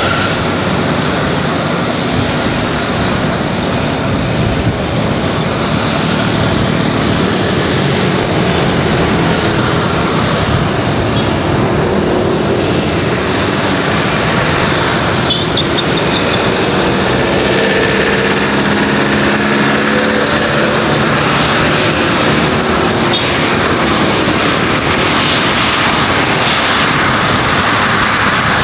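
Airbus A350's Rolls-Royce Trent XWB jet engines running loudly and steadily as the airliner touches down and rolls out on a wet runway, with faint shifting engine tones under the noise.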